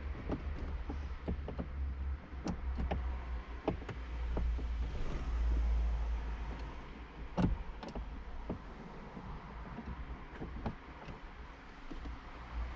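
Scattered small metallic clicks and knocks of a Torx bit being poked at a heater blower-motor screw and failing to seat, because the bit is a T25 and the screw a T20, over a low handling rumble.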